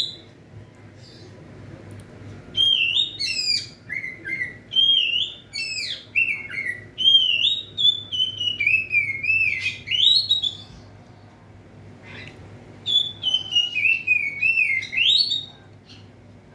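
Oriental magpie-robin (kacer) singing in full voice: rapid runs of slurred, whistled phrases, one lasting about eight seconds, then a pause, then a shorter run of a few seconds. A faint steady low hum lies underneath.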